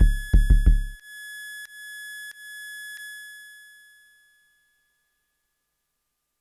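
KORG Volca Kick and Volca Drum drum machines ending a techno groove. Deep electronic kick-drum hits stop about a second in, leaving a high, ringing electronic tone that sounds four more times and fades out over about three seconds.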